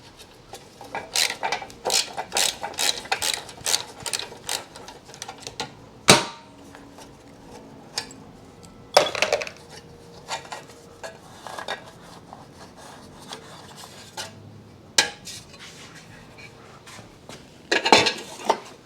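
Hand tools and metal parts clinking and knocking during a motorcycle teardown: a run of quick metallic clicks, then a sharp knock, then separate clatters, the last a short cluster of clanks near the end.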